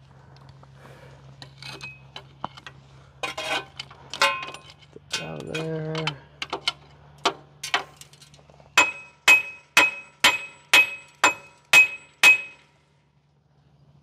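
Metal on metal on the steel fifth wheel: scattered light clinks and scrapes, then a regular run of about eight sharp metallic taps, about two a second, each ringing briefly. A steady low hum runs underneath and drops out after the last tap.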